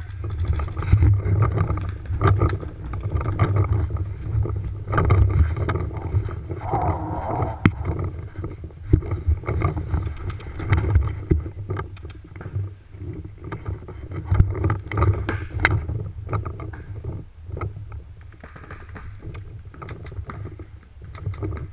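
Paintball markers firing during a game, heard as scattered sharp pops at an uneven pace over a steady low rumble on the camera microphone.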